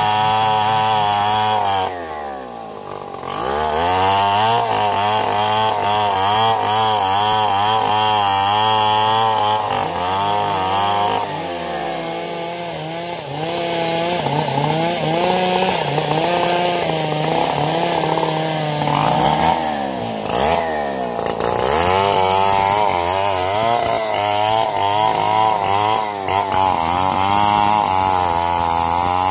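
Two-stroke chainsaw cutting into a mahogany trunk at high revs. Its engine speed drops and picks up again several times: briefly about 2 s in, lower and uneven from about 11 to 19 s, and again around 20 s.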